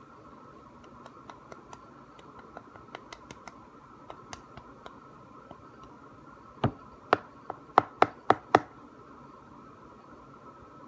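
Hands handling chalk and plastic containers: scattered light clicks and taps, then a quick run of about seven sharp knocks about two-thirds of the way in, over a faint steady hum.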